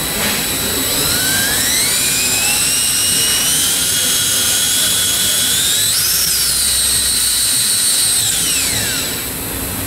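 Cordless drill spinning a demolition-attachment gearbox through a spin-test tool in its input spline. The motor whine rises over the first few seconds, holds steady, climbs briefly about six seconds in, then winds down near the end. This is a spin test, run slowly while listening for odd noises and feeling for tight spots in the gears.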